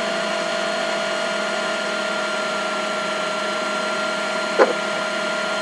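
Steady hum and hiss with a few fixed whining tones, and one short knock about four and a half seconds in.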